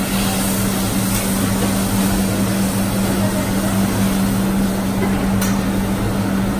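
A steady low machine hum with a rushing noise over it, and a couple of faint clicks.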